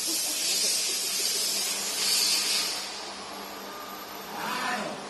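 Hissing air from a CNC woodworking machine's pneumatics, coming in surges until about three seconds in, then a short hiss falling in pitch near the end, over a steady low hum.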